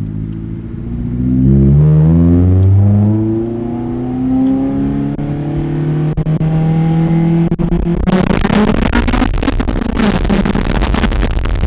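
Honda S2000's four-cylinder engine, breathing through a high-flow cat and a straight pipe, pulls hard with its exhaust note climbing steadily in pitch for several seconds. About eight seconds in, a loud rough rushing noise swamps the engine note.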